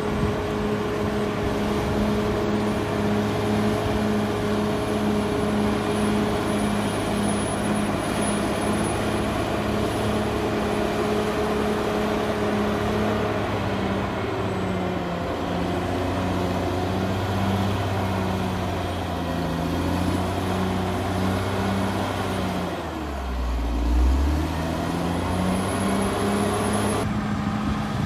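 Caterpillar D6R XL bulldozer's diesel engine working under load while pushing soil: a steady engine note that sags and wavers in pitch midway. Near the end it dips sharply with a low thump and picks back up.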